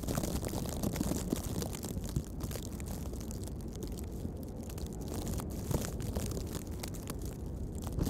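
Blizzard wind blowing over the microphone: a steady rushing noise with a heavy low rumble, hiss and scattered small ticks.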